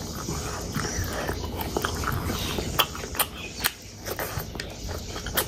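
Close-miked eating sounds: wet chewing and many sharp mouth clicks and smacks as a person eats spicy pork pickle and rice by hand.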